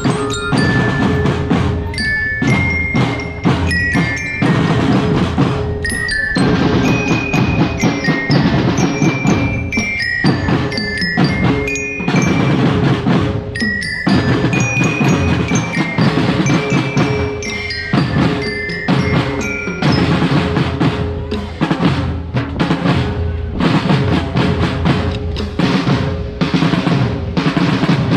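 Marching drum band playing: marching glockenspiels pick out a high, bell-like melody over snare drums played with quick repeated strokes.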